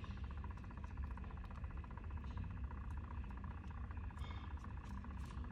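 Steady low hum of the small electric motor of a tumbler spinner turning a resin-coated cup, with a few faint clicks.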